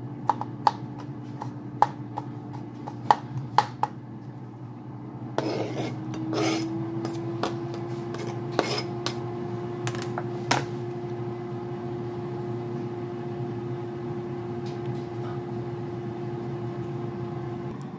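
Paring knife tapping on a plastic cutting board as garlic is minced, a few sharp clicks over the first four seconds, then scraping and clatter as the board is handled from about five to ten seconds in. A steady hum runs underneath from the air fryer cooking the pork.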